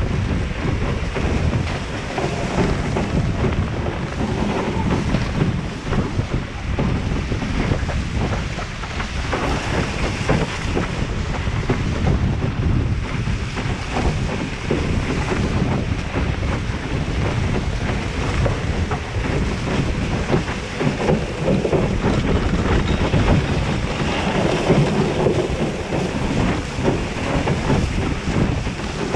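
Wind buffeting the action camera's microphone and water rushing and spraying past the hull of a Musto Skiff planing fast, a steady heavy rumble with constant gusty flutter.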